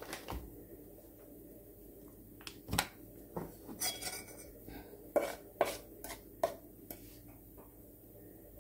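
Kitchenware clinking and knocking: a metal bowl and spoon and the plates under the paskas picked up and set down, about a dozen light, separate knocks over the first seven seconds.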